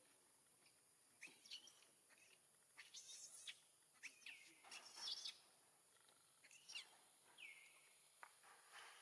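Faint high-pitched animal calls: a scatter of short chirps and squeaks that rise and fall in pitch, with one longer falling call near the end.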